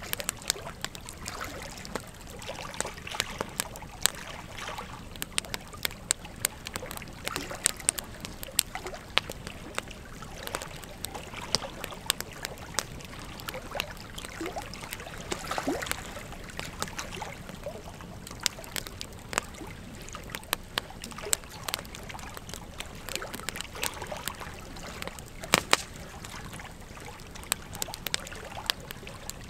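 Wood fire burning: a steady hiss of flames with frequent sharp crackles and pops from the burning logs, one louder pop about three-quarters of the way through.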